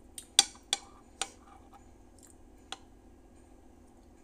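Metal spoon clinking against a dish or bowl: a quick run of sharp clinks in the first second and a half, the second the loudest, and one more near three seconds.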